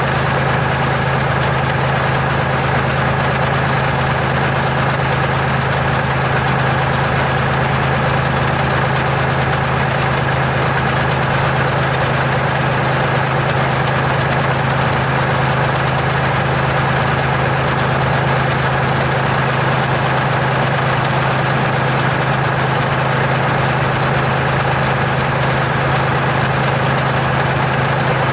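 Terex R-35 dump truck's diesel engine idling steadily, its speed unchanging.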